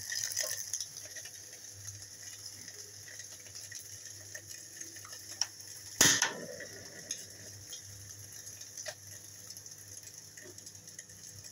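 Portable gas stove burner hissing steadily under a wok, with one sharp loud click about six seconds in as the control knob is turned, and a few faint ticks.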